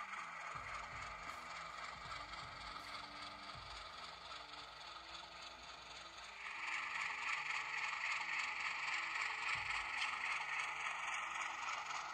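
HO scale model train running on the track: the locomotive's motor and gear drive whining with the clatter of the train's wheels, getting louder about six and a half seconds in as it comes closer.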